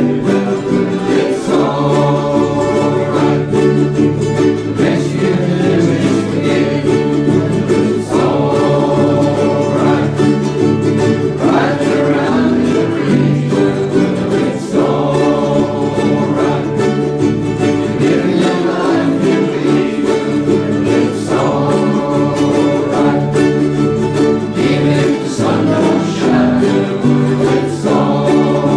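Ukuleles strummed steadily in time while a small group of men sing together.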